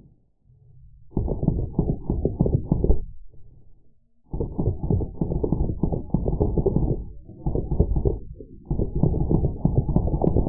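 Drozd Blackbird BB machine guns firing full-auto bursts, slowed down so the rapid shots come out as deep, low thuds. Several long bursts, the first starting about a second in, separated by short gaps.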